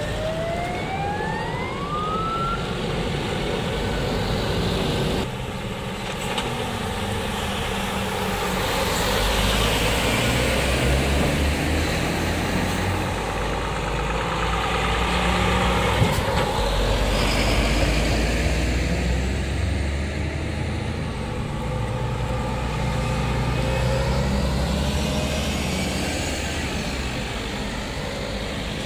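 A convoy of fire engines and fire-service vans towing trailers driving past one after another, engine and tyre noise swelling and fading as each vehicle goes by. A siren winds up briefly in the first couple of seconds.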